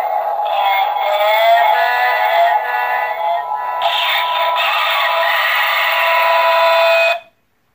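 Animated Halloween doll playing its song, a sung melody through a small built-in speaker, thin with no bass. The song cuts off suddenly near the end.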